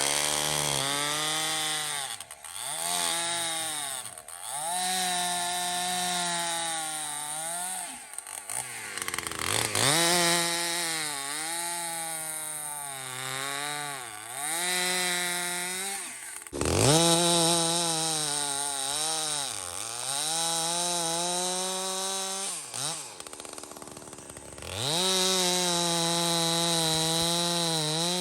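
Husqvarna 372XP clone two-stroke chainsaw running at high revs, its pitch sagging and recovering several times.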